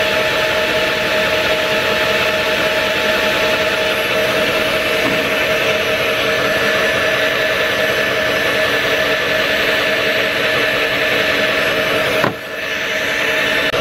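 Cordless drill in its low-speed setting 1, running steadily as it spins the shaft of a 12-volt DC motor used as a generator. Near the end it briefly drops off and then picks back up.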